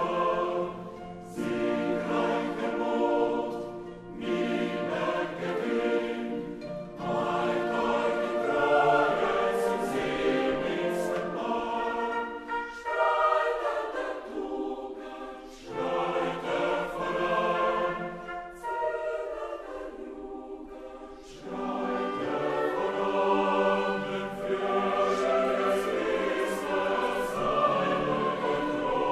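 Choral music: many voices singing long held phrases, with short pauses between them.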